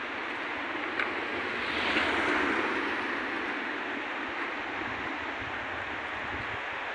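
Steady rushing of a stony mountain river's rapids, swelling briefly about two seconds in, with wind buffeting the microphone.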